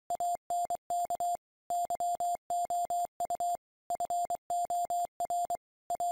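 Morse code: a single steady beep keyed on and off in short dots and longer dashes, with brief pauses between letters.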